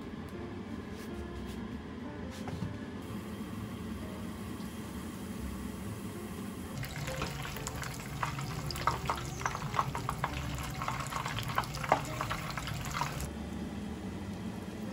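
Panko-breaded pork cutlets deep-frying in hot oil, sizzling and crackling with many small pops. The frying starts about seven seconds in and stops abruptly about six seconds later.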